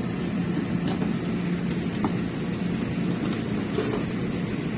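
Steady background noise: a continuous rushing sound with a low steady hum underneath, and no distinct knocks or clicks.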